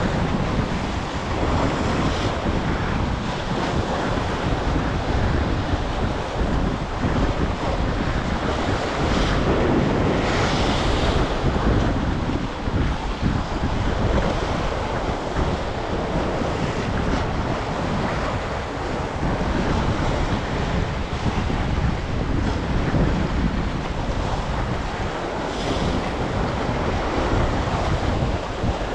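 Wind buffeting the microphone over the steady wash of sea surf, with gusts rising and falling.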